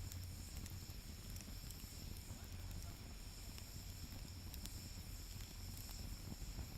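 Wood fire crackling in a fire stand, with scattered sharp pops over a steady low rumble.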